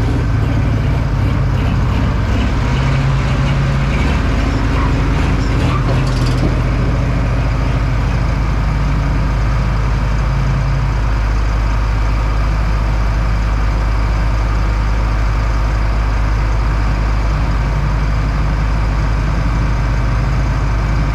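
A large engine idling steadily with an even, low rumble.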